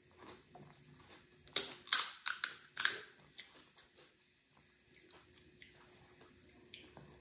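Crisp fried panipuri shell cracked open by fingers: a quick run of five or six sharp crackles about a second and a half in, then faint handling clicks.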